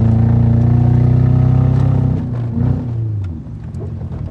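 Car engine running at high, steady revs, then the revs drop away about two to three seconds in, leaving a quieter rumble with a few faint knocks.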